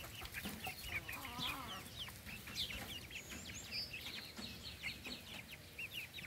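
A flock of young chickens peeping and cheeping: many short, high calls, several a second, overlapping without a break.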